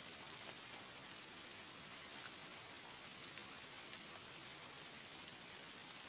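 Steady rain falling, a faint even hiss with a few scattered drop ticks.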